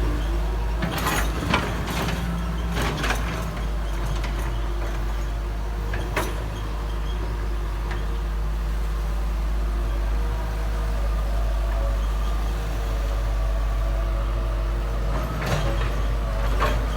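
Backhoe's diesel engine running steadily, with several sharp metallic clanks: a cluster in the first few seconds, one about six seconds in, and more near the end.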